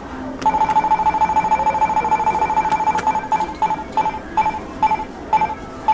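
Candy vending machine's game counter beeping after its start button is pressed: a fast, even string of high electronic beeps, breaking about three seconds in into separate beeps that come slower and slower as the counter winds down.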